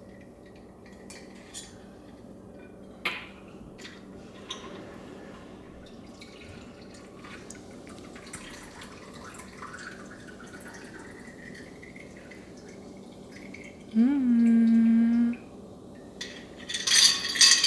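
Glassware and dishes being handled while a drink is prepared: scattered small clinks and a little liquid. About 14 s in, a loud steady low tone lasts just over a second, and a clatter of dishes comes near the end.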